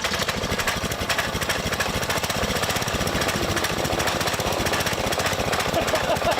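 Small gas engine of a pressure washer running steadily with a fast, even rattle.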